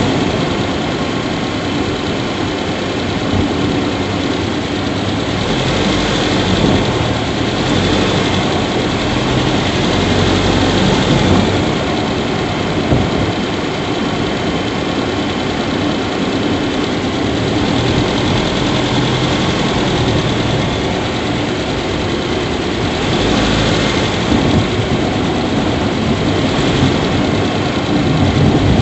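Subaru Levorg 1.6GT-S's 1.6-litre turbocharged flat-four engine idling steadily in the engine bay, recorded for an abnormal squeak ('kyuri') that the owner hears growing louder as the engine runs and warms.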